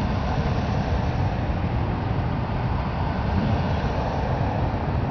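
Engines of a slow procession of police cars passing close by, a steady low rumble.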